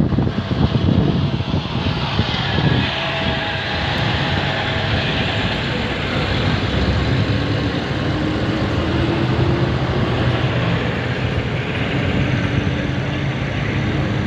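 Bus engine and road and wind noise at highway speed, heard at an open window of the moving bus: a steady rumble with a low engine hum, gustier in the first few seconds.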